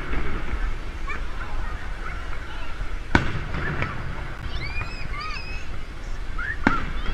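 Aerial fireworks shells bursting overhead: a sharp bang about three seconds in, another just before four seconds, and a third near the end. Between the bangs a watching crowd chatters and calls out.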